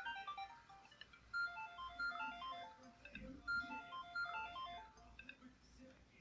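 Siemens S55 mobile phone playing a ringtone through its small speaker: a melody of short, evenly pitched electronic notes with several sounding together.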